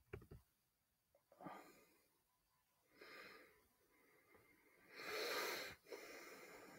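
Faint breathing close to the microphone: a few quick clicks at the start, then several noisy breaths, the longest and loudest about five seconds in.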